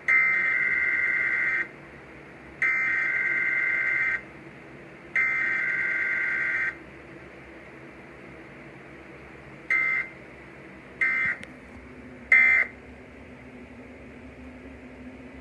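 Emergency Alert System (EAS) test data bursts: three long bursts of harsh two-pitch digital screeching (the SAME header), followed by three short bursts (the end-of-message code), with no attention tone between them. The signal sits over a steady broadcast hiss.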